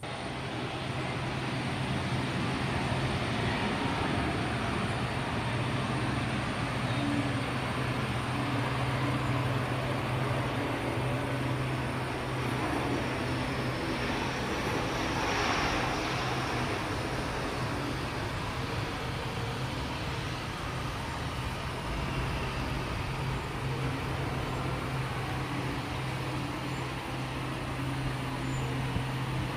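Twin turbofan engines of a Sukhoi Su-30 fighter landing: a steady jet roar over a deep hum, loudest about halfway through as it passes, with a faint high whine that rises and falls around then.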